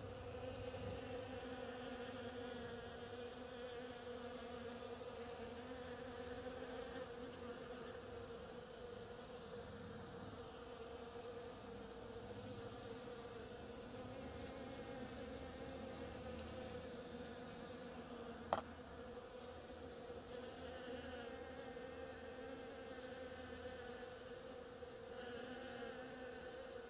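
Many foraging bees buzzing in a steady, even hum, with one brief sharp click about two-thirds of the way through.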